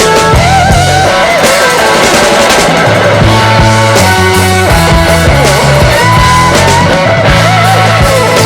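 Background rock music with electric guitar, bass and drums.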